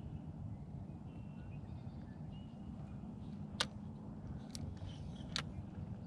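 Steady low rumble of outdoor background noise with faint, short bird chirps, and three sharp clicks a little under a second apart in the second half.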